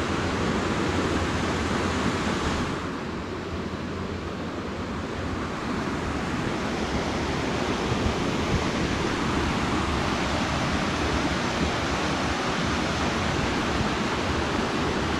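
Steady rush of white water pouring over a rocky river cascade into a pool.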